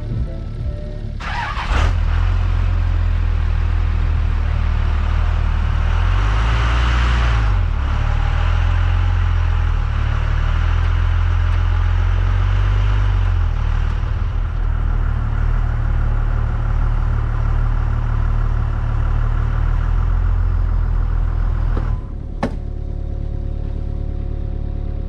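An engine starts up about a second and a half in and runs, its speed shifting a few times, then settles to a lower, quieter idle near the end.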